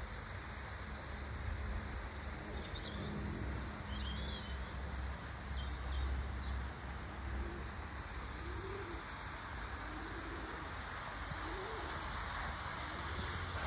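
Small birds chirping a few seconds in, then a pigeon cooing several times in the second half, over a steady low rumble.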